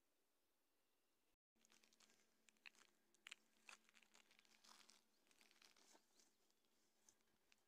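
Near silence, broken by faint scattered crackles and crunching clicks over a few seconds after a brief dropout about a second and a half in.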